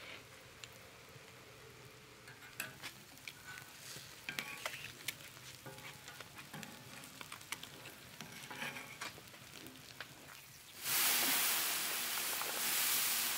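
Boiled eggs sizzling faintly in oil on a large tawa griddle, with metal spoons scraping and clicking against the griddle as the eggs are turned. About eleven seconds in a loud, steady hiss starts suddenly as a cloud of steam rises off the hot griddle.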